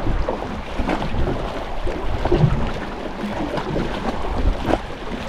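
Wind buffeting the microphone over water lapping against a small boat's hull, with a few light knocks.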